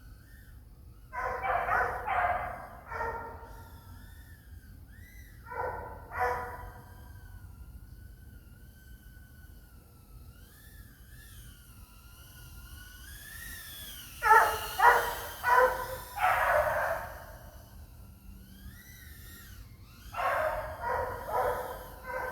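Dogs barking in groups of several barks: a run about a second in, two barks about six seconds in, the loudest run from about fourteen to seventeen seconds, and another run near the end. A faint wavering whine runs between the barks.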